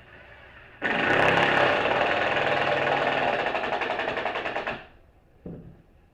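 A power tool runs in one burst of about four seconds with a fast, even rattle, starting and stopping abruptly. A single knock follows about a second after it stops.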